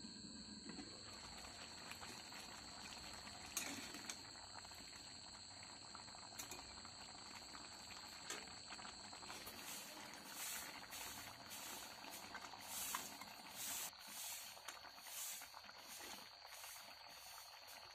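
Chicken curry simmering and bubbling in a kadai, with a single clack a few seconds in. Through the second half a ladle scrapes and stirs through the thick curry in repeated strokes.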